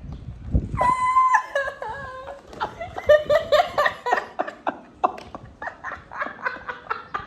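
A man's high-pitched yelp, then several seconds of rapid, rhythmic laughter.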